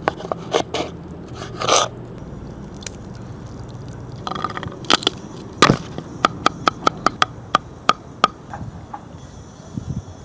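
Food-preparation sounds of utensils: a few scrapes and knocks, then a run of about ten sharp, even taps, roughly three a second, that stops about two-thirds of the way in.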